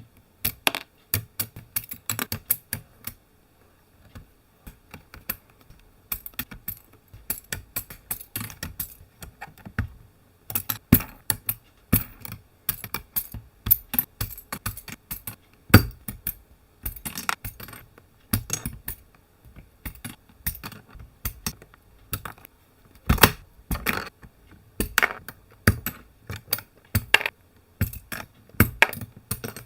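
Typing on an Aula F99 mechanical keyboard with Greywood V3 switches: a fast, irregular run of key clacks with a short pause about three seconds in.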